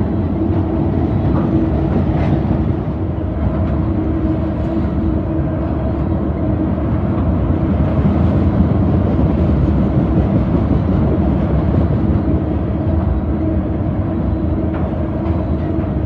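Freight train of tank cars rolling past at close range: steel wheels on rail making a loud, steady rumble, with a steady tone held through it.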